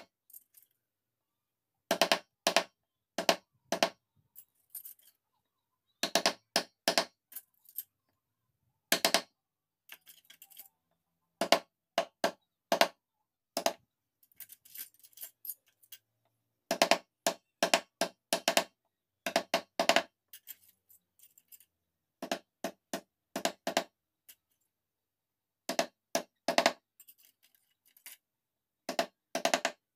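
Mallet striking a carving chisel into mahogany: sharp knocks in quick groups of two to four, with short pauses between groups.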